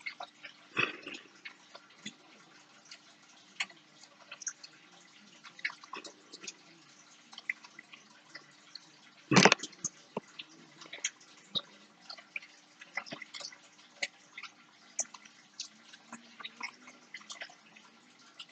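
Small, irregular clicks and taps of fingers handling a paper clip and thread against a tabletop while thread is wrapped around the clip, with a louder knock about nine seconds in, over a faint steady hum.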